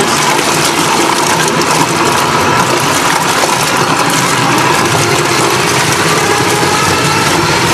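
Propeller of a homemade electric outboard, a permanent-magnet DC motor on a 1979 Suzuki 5 hp lower unit, churning the water hard at high power as the throttle is pushed toward full. A loud, steady rush and splash of water, with a faint steady whine in it.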